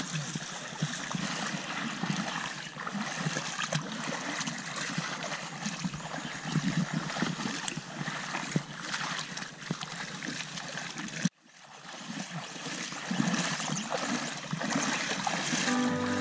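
Footsteps splashing through a shallow, rocky creek, with the creek water trickling and gurgling around them. The sound breaks off for a moment about eleven seconds in.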